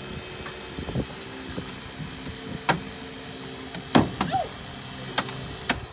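A car body cracking and snapping under a hydraulic rescue tool (Jaws of Life): a few sharp cracks, the loudest about four seconds in. Beneath them is the steady hum of the tool's engine-driven hydraulic pump.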